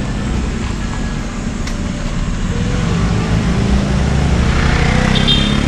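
Street traffic and road noise picked up while riding, with a heavy low rumble of wind on the microphone. A vehicle engine grows louder in the second half.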